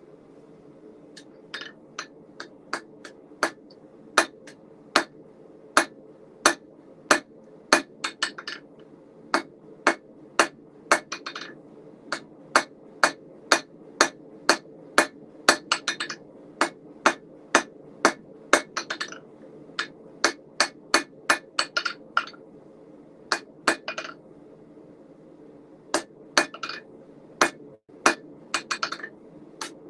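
A blacksmith's rounding hammer striking hot steel on an anvil in a steady run of ringing blows, about one and a half a second, broken by a few short pauses. Under the blows, a propane forge runs with a steady hum.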